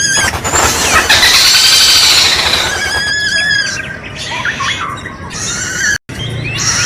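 Kadalan kembang (a malkoha) calling: loud, drawn-out squealing notes with a harsh, rasping stretch in the first few seconds. The sound cuts out abruptly for an instant near the end, then the calling resumes.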